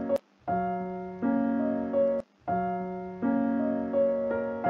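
Background music: a short piano-like keyboard phrase repeated, each time a held low chord followed by a second chord. Each phrase stops abruptly, with a brief gap before it starts again.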